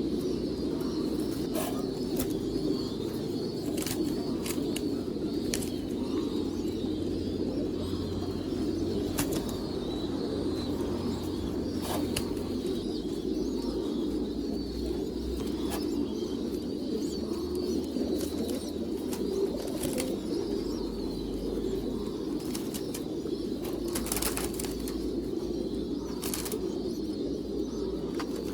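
A flock of domestic pigeons cooing continuously together, with scattered sharp clicks and wing flaps.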